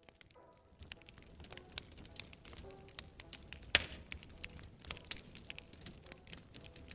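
Wood fire in a fireplace crackling and popping, rising from silence at the start, with one loud pop just under four seconds in. Faint music notes sound beneath the crackle.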